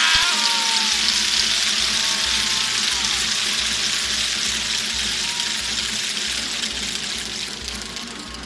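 Crowd applauding and cheering in a large indoor arena, a dense clapping noise that slowly fades, with a few shouts near the start.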